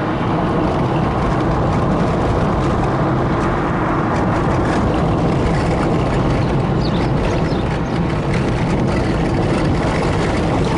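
Car driving slowly along a gravel road: a steady engine hum with tyre and road noise.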